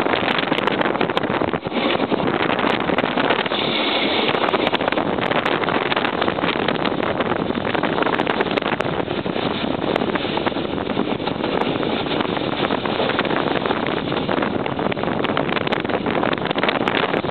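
Diesel railcar (littorina) running along the line, heard through its open side window: a steady rush of engine, wheels on the track and wind on the microphone.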